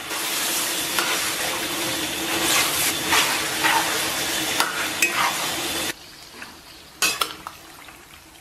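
Cut peppers, onion and garlic sizzling loudly in a hot wok with pig intestines as a metal spatula stirs them. About six seconds in the loud sizzle cuts off suddenly, leaving quieter stirring with a couple of sharp scrapes of the spatula against the wok.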